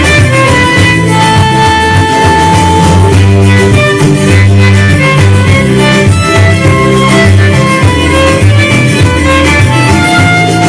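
Instrumental music: a held melody over a strong, moving bass line, with no singing.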